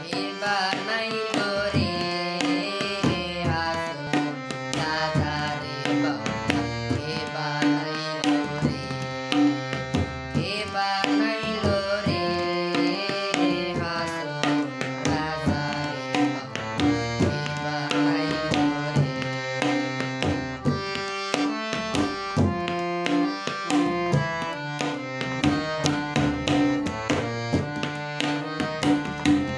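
Electronic keyboard playing a Bengali folk melody with sustained low notes underneath, over a steady repeating drum rhythm.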